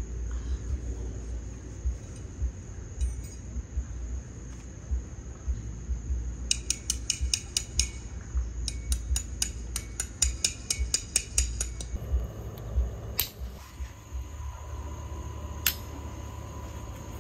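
Night insects calling: a steady high-pitched cricket trill, joined about six seconds in by two bouts of rapid, evenly spaced high clicking pulses, over a low steady rumble.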